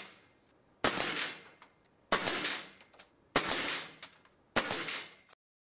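Seneca Dragonfly Mk II multi-pump pneumatic air rifle firing four shots about a second and a quarter apart. Each is a sharp report with a short ringing tail, and the sound cuts off suddenly near the end.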